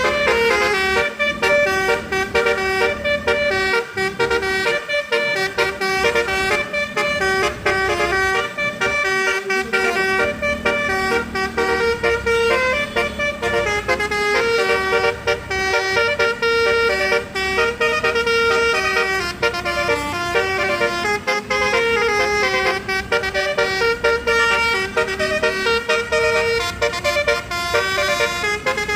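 Basuri multi-tone bus horn (telolet) playing a melody: horn notes stepping rapidly from pitch to pitch without a break.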